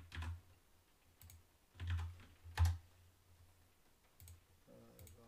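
Computer keyboard keystrokes and clicks: a handful of scattered taps, the sharpest and loudest about two and a half seconds in.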